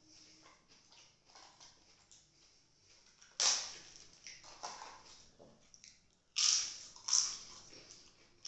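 Crisp papad (papadum) crackling and snapping as it is broken by hand: one loud crackle about three and a half seconds in and two more a little after six and seven seconds, with faint small rustles between.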